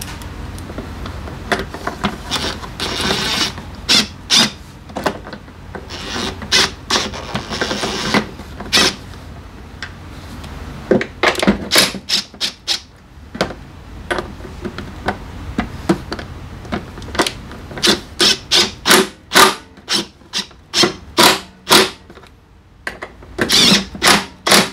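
Hand-tool work on a Honda SCR100 scooter: stretches of rubbing and scraping in the first third, then a long run of irregular sharp clicks and knocks of metal and plastic parts being handled.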